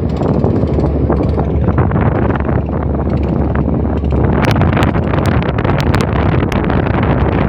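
Wind buffeting the microphone over a steady low rumble. A run of sharp clicks comes in about four seconds in and lasts for a couple of seconds.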